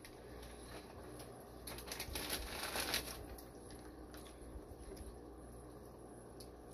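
Faint rustling of plastic fish-shipping bags being handled, swelling for about a second near the middle.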